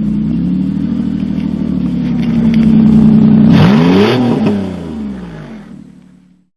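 1998 Nissan Pathfinder's engine running loud and open through an exhaust that ends at the headers, then revved once about three and a half seconds in, its pitch rising and falling again. The sound then dies away near the end.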